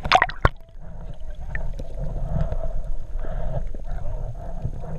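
Muffled underwater noise through a waterproof camera housing, with two sharp knocks of the housing being handled just after the start, then a steady low murmur that swells about once a second.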